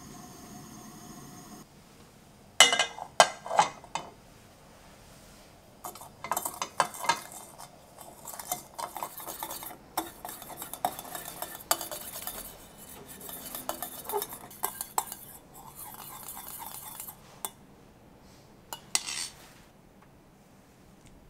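Wire whisk beating an egg mixture in a stainless steel bowl set over a saucepan as a double boiler: a quick, uneven clatter of wire against metal that runs for about ten seconds. It is preceded by three loud knocks, and a couple more knocks come near the end.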